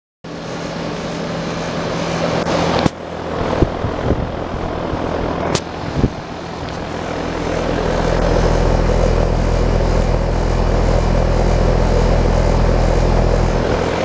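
A 2014 American Standard central air conditioner's outdoor condensing unit running: a steady hum under the rushing whoosh of its fan, with a few knocks in the first six seconds. The sound grows louder and deeper about halfway through.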